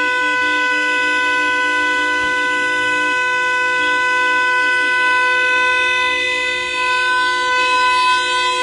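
Several car horns held down together in one long, steady protest blare from a slow-moving motorcade. A lower-pitched horn drops out about three seconds in, while the higher horns keep sounding.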